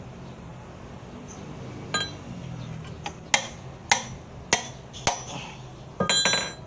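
Steel wrench knocking against the oil-pan drain plug of a truck engine as the plug is worked loose: several sharp single metallic knocks about half a second apart, then a quick jangle of metal tools clinking together near the end.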